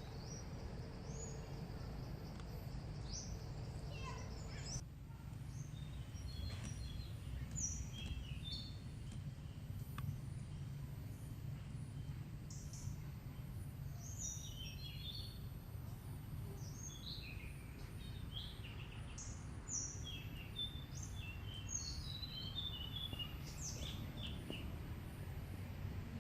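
Several birds chirping and calling in short, scattered notes and chattering runs, over a steady low rumble.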